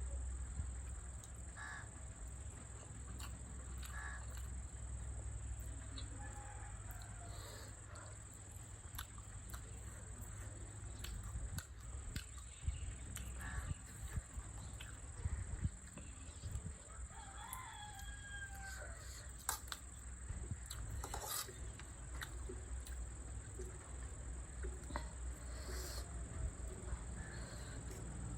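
A rooster crowing, clearest in one call about two-thirds of the way in, over a steady high insect drone and a low hum, with scattered sharp clicks.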